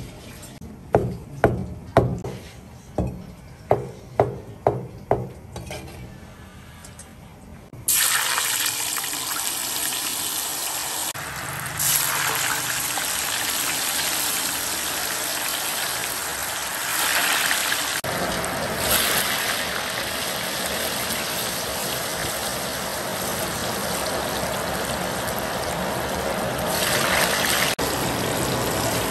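About ten sharp knocks over the first five seconds. Then, about eight seconds in, water starts running and keeps running steadily.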